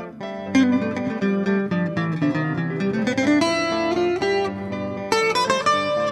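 Background music led by acoustic guitar, with plucked notes and strummed chords.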